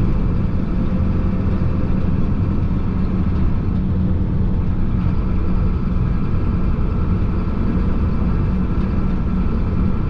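Chenglong concrete mixer truck's diesel engine running steadily, heard from inside the cab, with no change in pitch or level.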